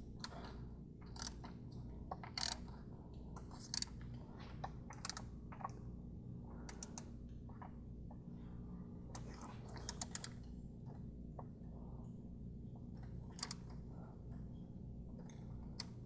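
Scattered short metallic clicks from a ratchet and Torx bit on a long extension as a small mounting screw on a VW 2.5L five-cylinder vacuum pump is snugged up, a quick cluster of them about ten seconds in. A steady low hum runs underneath.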